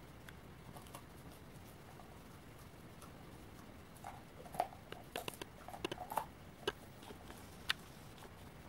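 A dog crunching walnuts in its jaws: a run of sharp shell cracks and crunches from about four seconds in, the last and one of the loudest near the end.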